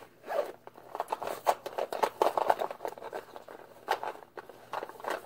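Rummaging through a makeup bag: many quick clicks and knocks of makeup items against each other, with rustling. It cuts off suddenly at the end.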